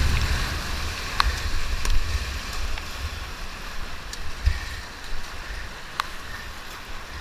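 Whitewater rapids rushing and splashing around a kayak, heard as a steady wash with a low rumble of water and wind on the microphone. A few sharp ticks are scattered through it.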